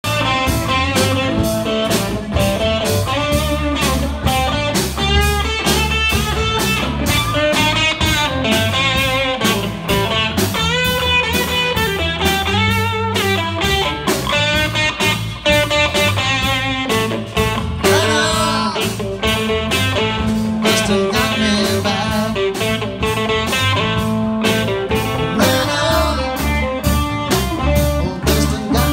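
Live blues band playing an instrumental passage: electric guitars, one a Telecaster-style guitar, over drums keeping a steady beat.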